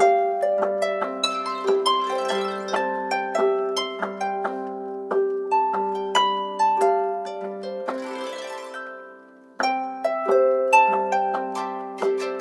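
Samsung Galaxy A5 (2016) ringtone playing: a quick melody of plucked, harp-like notes. About two-thirds of the way through it dies away with a brief shimmer, then the melody starts over.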